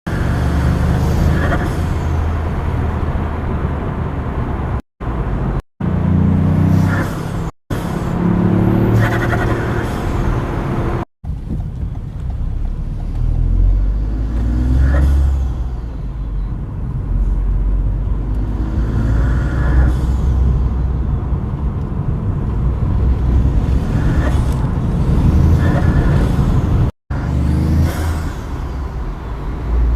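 Toyota GR Yaris rally car's turbocharged engine revving up and lifting off repeatedly, with turbo flutter and blow-off valve hiss each time the throttle closes. The sound cuts out abruptly for a moment several times.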